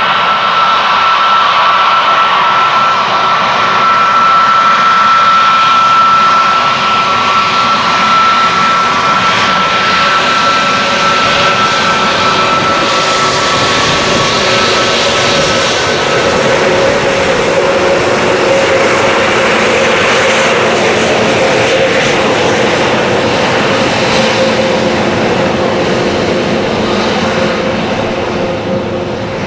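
Jet airliner engines running loud and close. A steady high whine is strongest in the first half and fades out about halfway, while a lower drone and a broad roar carry on to the end.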